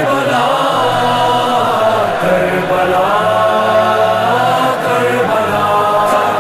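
Chanted vocal music sung by several voices in long, held, slowly gliding notes.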